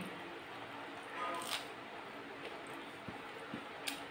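Close-up eating sounds: a person chewing a mouthful of rice with a few short, wet mouth clicks. Near the end comes a sharp click as fingers press into rice on a steel plate.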